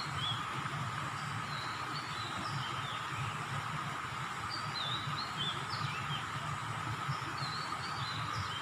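Small birds chirping, many short high calls scattered throughout, over a steady outdoor background with a constant high drone.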